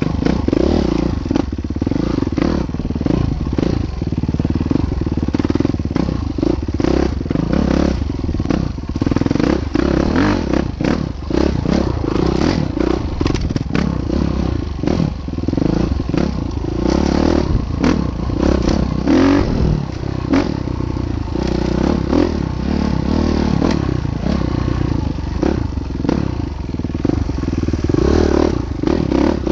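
A train rolling across a railway bridge: a steady heavy rumble with wheels clattering and knocking over the rails and bridge structure.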